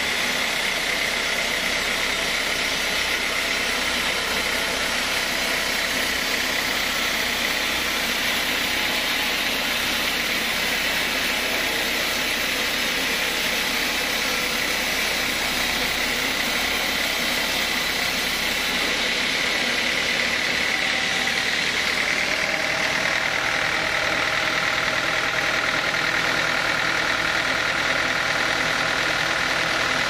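Band sawmill running steadily with a constant high whine from the blade and machinery. Its tone changes about two-thirds of the way through, as other steady tones come in lower down.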